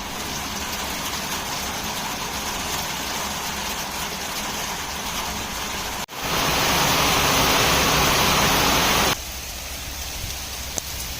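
Steady rain falling. It is louder and heavier from about six seconds in, then drops abruptly to a lighter hiss about three seconds later.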